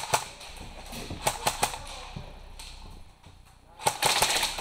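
Airsoft guns firing: a single shot, a quick string of about five shots about a second in, then a rapid burst near the end.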